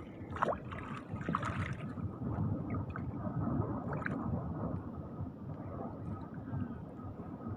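Feet wading through shallow seawater: water sloshing and gurgling around the legs, with a few small splashes in the first couple of seconds.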